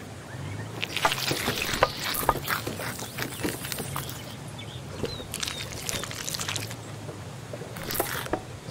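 Knife slicing through a grilled steak's charred crust on a wooden cutting board: dense crackling cutting noises in two spells, one about a second in and one about five seconds in, with a shorter burst near the end.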